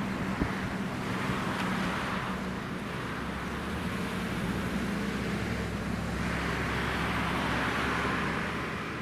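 Road traffic: vehicles passing twice, their tyre noise swelling and fading, over a steady low engine hum. No siren is sounding.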